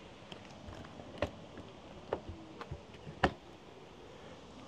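A few light clicks and knocks at uneven intervals, the loudest about three seconds in.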